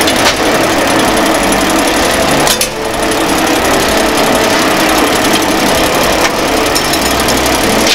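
MT5250 electric noodle making machine running, its rollers, noodle cutter and chain-driven hanging rack turning with a steady, fast mechanical rattle. There is a single sharp knock about two and a half seconds in.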